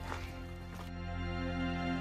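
Background music: soft, held notes that slowly swell in loudness.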